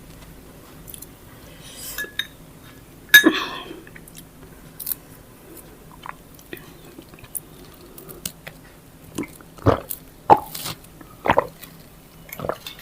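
Close-miked eating sounds: chewing and wet mouth noises, with scattered short clicks and smacks, the sharpest about three seconds in and a few more near the end.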